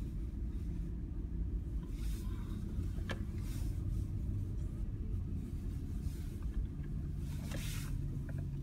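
Low, steady rumble of a car's engine and tyres heard from inside the cabin as it drives slowly, with a single sharp click about three seconds in.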